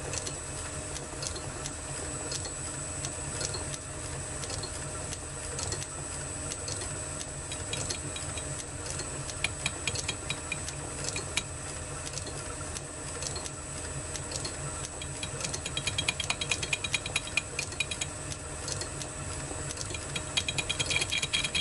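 Metal lathe running, turning down the flange of a Sturmey-Archer K hub held in a four-jaw chuck with light cuts. It is a steady machine hum with rapid ticking from the interrupted cut, louder and denser about two-thirds of the way through and again near the end.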